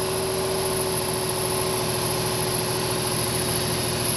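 2007 Nissan 350Z's 3.5-litre V6 idling steadily with a steady whining tone running over it: the noise whose source the owner cannot locate.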